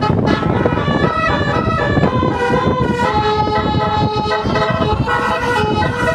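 Tour bus telolet basuri horn playing a tune: a run of held notes changing pitch step by step, several horn tones sounding together, over loud low background noise.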